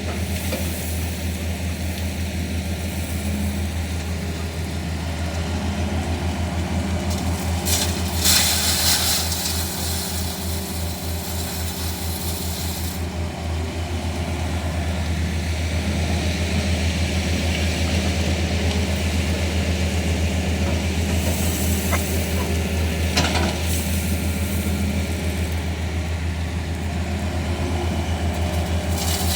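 Hitachi excavator's diesel engine running steadily with a low, even throb, with stretches of hiss and a couple of sharp clicks over it.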